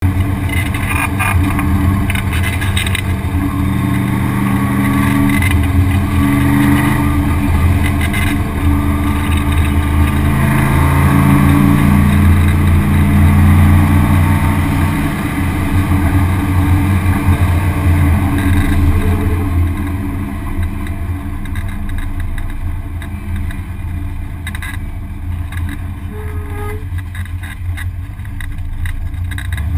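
In-cabin sound of a Camaro Mustang Challenge race car's V8 engine accelerating hard from a standing start, the revs climbing again and again through the first fifteen seconds or so. After about twenty seconds it runs quieter at lower revs.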